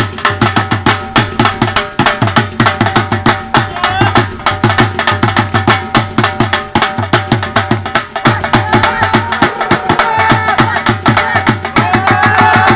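Bhangra music with a fast, driving dhol drum beat; a higher wavering melody comes up over the drums in the last few seconds.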